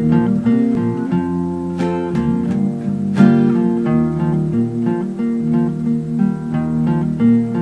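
Two acoustic guitars playing an instrumental intro, one capoed high on the neck: picked notes and chords, with a sharper chord about three seconds in.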